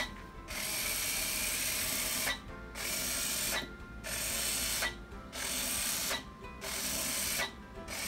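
Bee-Bot programmable floor robot's small gear motors whirring as it drives through a keyed-in sequence of moves and turns. It stops for a brief moment between each step, about six times, at roughly a second-and-a-quarter spacing.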